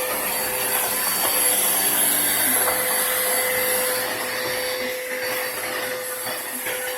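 Vacuum cleaner running steadily, a constant whine over a rushing hiss.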